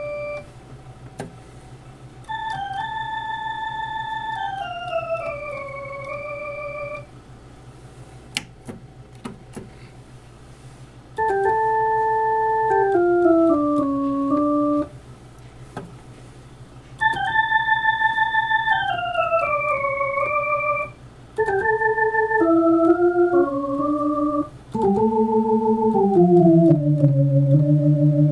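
1970s Gulbransen Pacemaker Custom electronic organ playing slow, stepwise descending phrases in octaves, with pauses between them. A steady low electrical hum carries on through the gaps, which the owner puts down to long-term power issues. A single sharp click sounds about a third of the way in.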